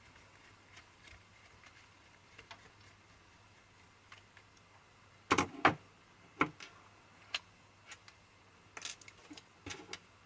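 Faint ticks from a screwdriver working a screw in a DVD recorder's front-panel board, then a cluster of sharp clicks and light knocks about halfway through as the plastic-framed board is lifted free, with more scattered clicks after.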